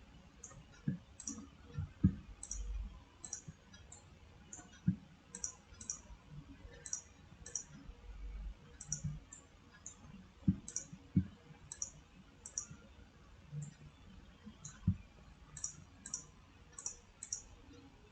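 Computer mouse buttons clicking at an irregular pace, many of them close double clicks, along with a few soft low knocks, as faces are selected in CAD software.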